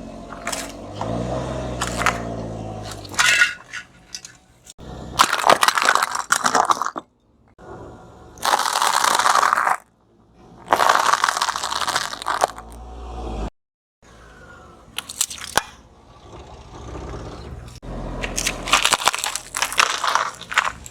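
A series of crunching and cracking sounds as objects are crushed under a car's tyres, in several short clips separated by abrupt cuts. In the first couple of seconds a falling hum of the car slowing is heard under the crunching.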